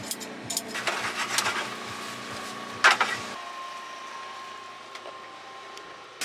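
Kitchen scissors snipping fresh herbs, a quick run of sharp snips followed by one loud clack just before three seconds in. After that comes a quieter stretch with a steady hum while noodles are stirred in a pot of hot water.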